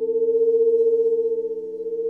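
Sustained pure sound-healing tones built on 432 Hz and 528 Hz, layered into a steady drone. The loudness swells and then dips slightly near the end.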